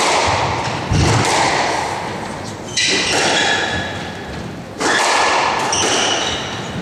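Squash rally: the ball is struck by racquets and hits the walls in sharp cracks every one to two seconds, each echoing on in the enclosed court, with short high sneaker squeaks on the wooden floor between the shots.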